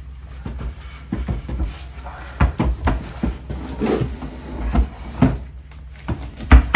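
Irregular knocks and thumps of a time capsule being handled and squeezed through a narrow opening down into a crypt, with the heaviest thump near the end.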